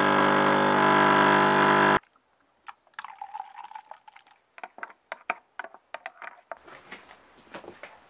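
Espresso machine's pump buzzing steadily while coffee runs into a cup, cutting off suddenly about two seconds in. Then, more quietly, milk is poured from a carton into an enamel mug, with a few light clicks and knocks.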